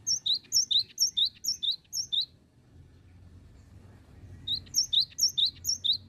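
Cinereous tit (gelatik batu) singing: two runs of loud, high, quickly repeated two-note phrases, each run about two seconds long, with a short pause between them.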